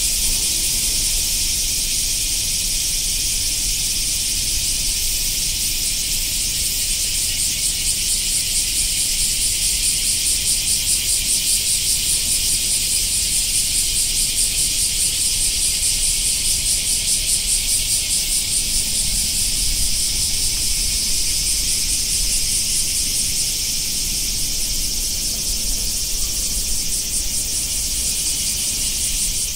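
Cicada chorus: a loud, steady, shrill buzzing hiss with a fast pulse running through it.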